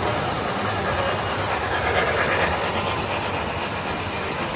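O gauge model trains rolling past close by on the layout, a steady running noise of wheels on the track and motors, swelling slightly about two seconds in.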